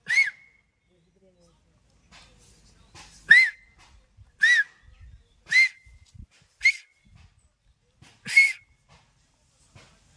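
Man's finger whistle with the tongue folded, blown as six short, sharp whistles, each rising then falling in pitch: one near the start, a run of four about a second apart from about three seconds in, and a last one near the end.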